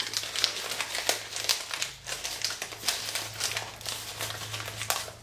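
Packing material crinkling and rustling in quick, irregular crackles as hands dig through an opened parcel.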